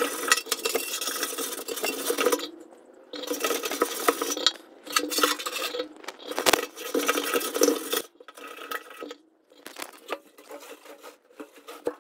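Scrubbing inside an empty metal fuel tank through its pump opening to break loose the gummy residue left by years-old fuel: rapid bursts of rasping scrubbing with knocks. After about eight seconds it gives way to a few scattered light knocks.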